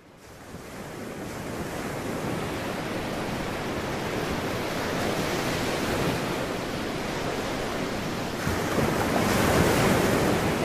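Sea surf washing on a shore, with wind: a steady rush that fades in over the first couple of seconds and swells near the end.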